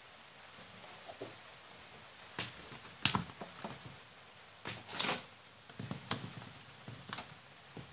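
Handling noises: irregular clicks and knocks as a small salvaged DC motor and its wires are picked up and turned in the hands, the loudest knock about five seconds in, over a faint hiss.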